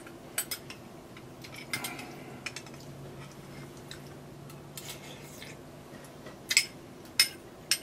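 A metal spoon clinking against a glass bowl and a small saucepan as soup is spooned out and eaten: scattered light clicks, sharper and closer together near the end.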